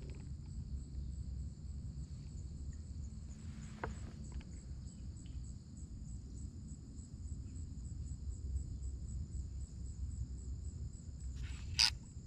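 Steady high chirring of insects, pulsing a few times a second, over a low rumble. A short click about four seconds in and a louder, sharper click near the end.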